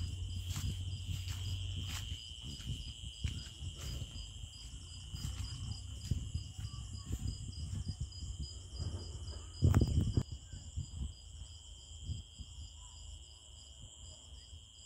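A steady chorus of insects chirping high, one of them pulsing several times a second. Low rumbling thuds run underneath, with one louder thump about ten seconds in.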